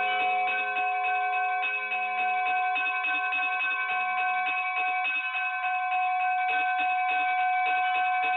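Bells pealing: quick, dense strikes ring over several held bell tones.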